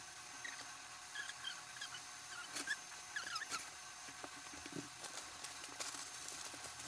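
Quiet rummaging through clothes and bags in a steel trunk, with a few light knocks and scattered short high chirps.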